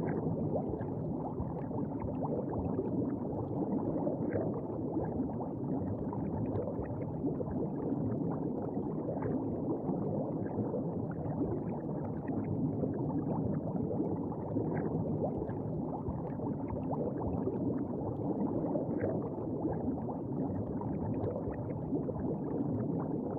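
Underwater ambience sound effect: a steady, muffled bubbling and gurgling of water with small bubble pops scattered throughout.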